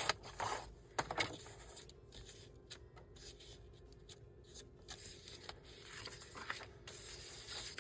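Scissors cutting through a printed paper tag: a run of faint, short snips with light paper rustling, a few louder strokes in the first second and a half.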